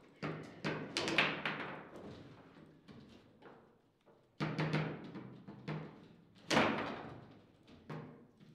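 Foosball table in play: irregular sharp knocks and bangs as the ball is struck by the figures and hits the table walls and rods, each with a short ringing boom from the table body.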